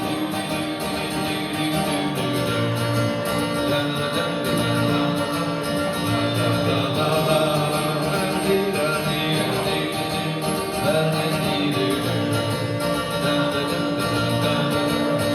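Instrumental break in an upbeat country song, guitar-led, with no singing.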